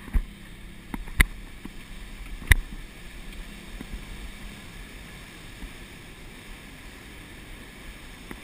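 A boat running through breaking surf: a steady rush of water and wind over a low rumble, with three sharp knocks in the first few seconds, the loudest about two and a half seconds in.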